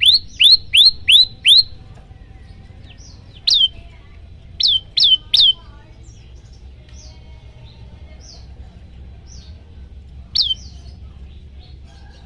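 Common tailorbird giving its loud, sharp 'tembakan' call, each note a quick downward-sweeping whistle. There is a run of five notes at about three a second, then a single note, a run of three, and one more single note after a long pause, with fainter chirps in between.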